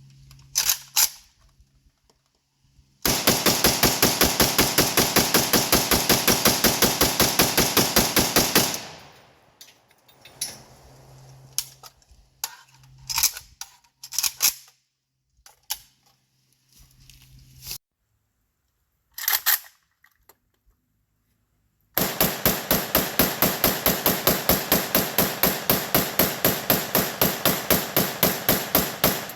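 AK-pattern rifle fired in two long rapid strings, about five shots a second, each a magazine emptied. The first string starts a few seconds in and lasts about six seconds; the second starts about two-thirds of the way in. Between them are scattered metallic clicks and knocks of the rifle being handled.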